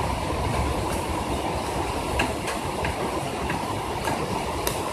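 Heavy rain drumming on a window ledge and on the body of the phone recording it: a steady, dense low rumble of drops, with a handful of sharper single drop taps in the middle.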